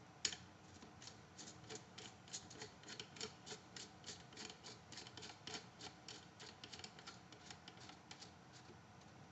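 Shotgun magazine cap being screwed back onto the magazine tube by hand: one sharper click at the start, then a steady run of faint clicks, about three or four a second, as the cap turns on.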